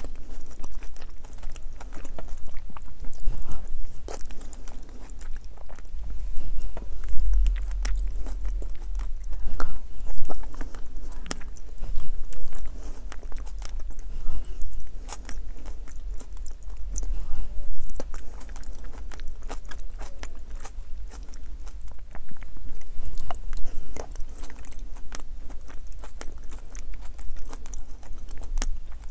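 A person chewing and eating spoonfuls of soft mapo tofu, picked up close by a clip-on microphone: a steady run of small mouth clicks and chewing noises.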